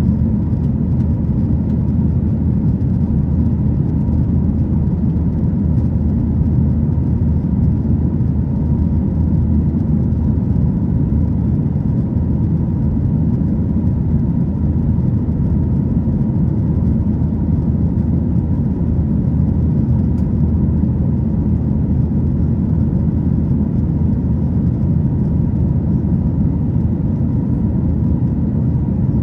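Steady cabin noise near the back of a Boeing 737-900ER: a deep, even rumble from its CFM56-7B jet engines and the airflow, with a faint steady whine above it.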